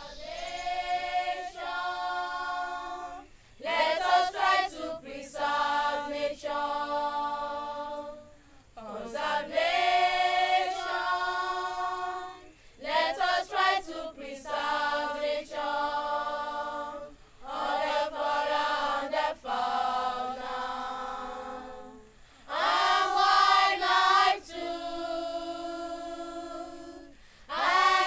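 A group of children singing a conservation song without instruments, with the words "Conservation, let us try to preserve nature" and "and all the natural resources". The singing comes in phrases of a few seconds with held notes and short breaks between them.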